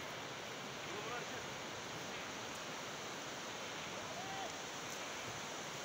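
Steady wash of surf running up a shallow sandy beach, with a few faint distant voices calling out about a second in and again about four seconds in.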